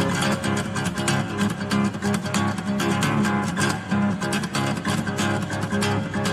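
Acoustic guitar strummed fast and hard, a rapid, unbroken run of chord strokes.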